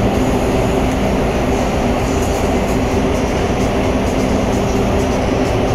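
A ship's engine droning steadily, its low hum holding a few even tones under a constant rushing noise.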